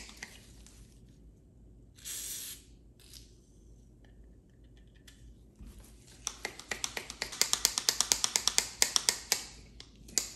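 A short spray hiss about two seconds in, then, from about six seconds, rapid clicking several times a second as steel lineman pliers are worked open and closed, clicking at each end of their swing. The pliers' stiff new pivot has been loosened with valve grinding compound and WD-40 and now swings fully open and closed.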